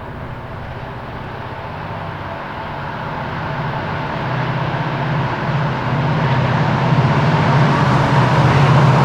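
Diesel freight locomotive running hard at high throttle, its engine drone growing steadily louder as it approaches.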